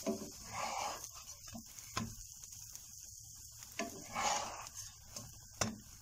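Wooden spatula knocking against and scraping across a nonstick frying pan as a flatbread is pushed around in it: four short sharp knocks and two longer scrapes, over a steady faint hiss of frying.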